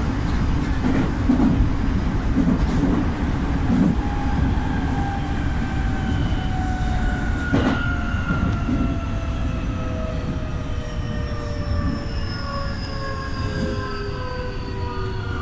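Electric train's motor whine sliding slowly down in pitch as the train brakes into a station, over a steady rumble of wheels on rail, with one sharp clack about halfway through.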